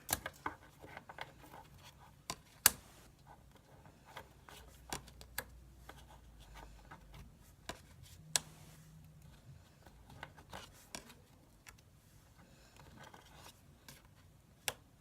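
Pokémon trading cards being handled and set aside: light scrapes, rubs and small clicks, with one sharper click a few seconds in.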